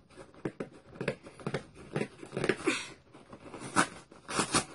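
Scissors cutting open a cardboard shipping box: an irregular run of snips, scrapes and crackles of packing tape and cardboard, loudest in the second half.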